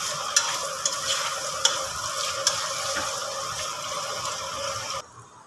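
Vegetables sizzling in hot oil in an aluminium pressure cooker while a spatula stirs them, with a few sharp scrapes against the pot. This is the sautéing stage of the vegetables. The sizzling cuts off suddenly near the end.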